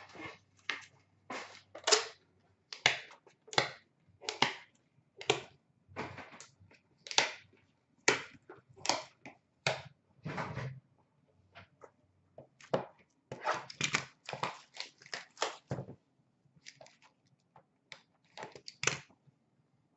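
Trading-card boxes and packaging being handled and torn open by hand: an irregular string of short crinkling, tearing and rustling sounds, with brief pauses around twelve seconds in and near the end.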